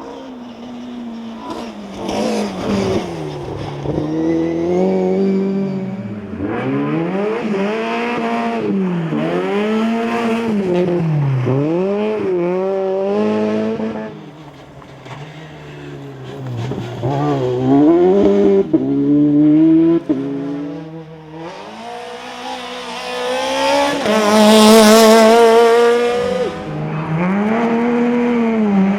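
Two-wheel-drive rally cars driven flat out. The engine pitch climbs and then drops sharply again and again through gear changes and lifts, with quieter gaps between passes. The loudest, closest pass comes about 25 seconds in.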